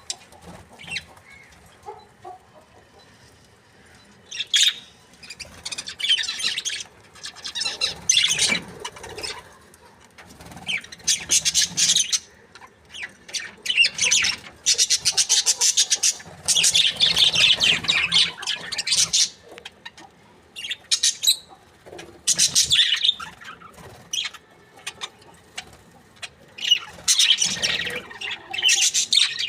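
A group of budgerigars chirping and chattering in irregular bursts a second or two long, separated by short quieter pauses.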